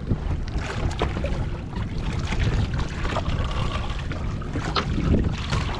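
Wind rumbling on the microphone aboard an open fishing boat, with a few faint knocks.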